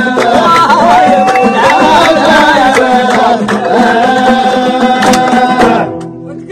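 Moroccan folk music: a man singing a wavering melodic line over a plucked long-necked lute, frame drum strokes and rhythmic handclaps. The music falls away shortly before the end.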